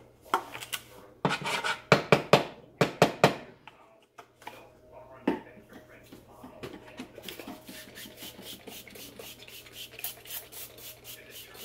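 A pump-spray bottle of butter spray being squirted onto a griddle, a fast run of short, even spritzes through the second half. Before it come a string of loud knocks and rubs from the bottle being handled.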